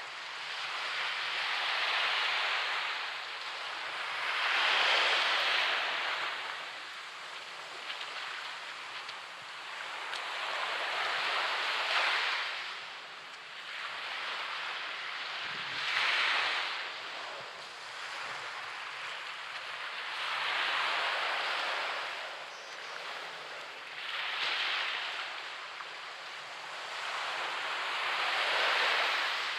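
Small surf waves breaking and washing up a sandy beach, a hiss that swells and falls about every four seconds, with several louder breakers through the stretch.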